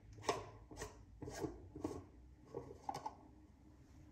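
Screw-on lid of a shaving soap tub being twisted open: a short grating rasp with each of about six turns, roughly half a second apart.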